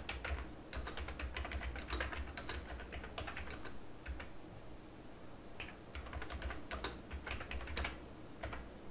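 Typing on a computer keyboard: a fast, irregular run of key clicks, with a short pause about halfway through.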